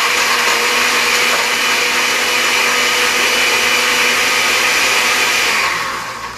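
Countertop blender running steadily as it blends watermelon into a slushy, then winding down and stopping near the end.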